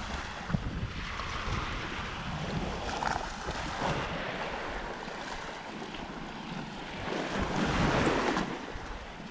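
Waves washing onto the shore, with wind buffeting the microphone; the surf swells louder near the end.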